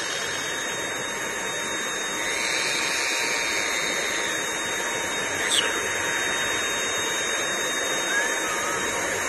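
Cordless stick vacuum cleaner running steadily, a rushing airflow with a high motor whine that grows a little louder about two seconds in. A brief high squeak sounds about five and a half seconds in.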